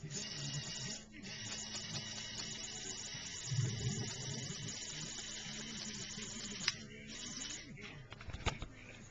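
Lego Power Functions electric motor whining steadily as it works the snow-plow arm's linear actuator, with a short break about a second in. It stops with a click near the end, followed by a couple of sharp clicks.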